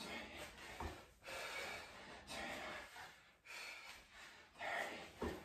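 Hard, heavy breathing of a man working through reverse lunges: about five forceful breaths, roughly one a second. Two soft low thuds come about a second in and near the end.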